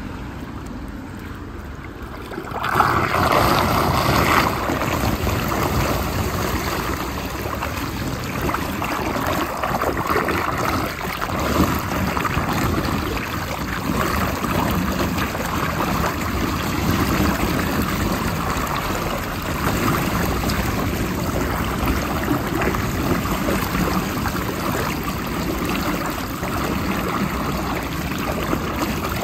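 Floodwater draining into a storm drain grate as the leaves clogging it are cleared, swirling down in a whirlpool. The rush of water rises suddenly about three seconds in and stays loud.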